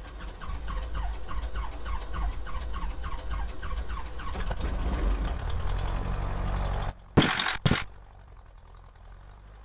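Cessna 150's four-cylinder Continental O-200 engine running just after start-up and settling, a steady rumble with a quick regular ticking chirp. About seven seconds in the engine sound drops away abruptly, followed by two loud short knocks, then only a low quiet hum.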